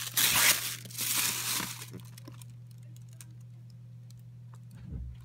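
Packaging being handled: wrapping crinkles and rustles as it is pulled off a box for about two seconds, then only faint handling clicks and a soft thump near the end.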